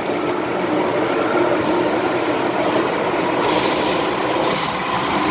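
An MTR M-Train heard from inside the car as it runs through a tunnel: a steady rumble of wheels on the track, with two short, high wheel squeals about three and a half seconds in and again a second later.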